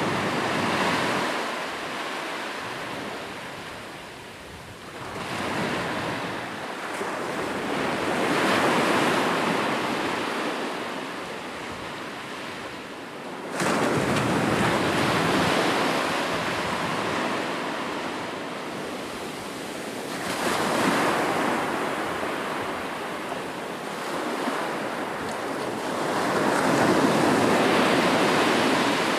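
Ocean waves breaking and washing in, the surf noise swelling and fading in several surges, one arriving suddenly about halfway through.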